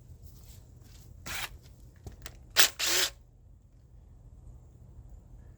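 Tools being handled during engine disassembly: a short burst of noise a little over a second in, then a sharp click and a loud burst of about a third of a second.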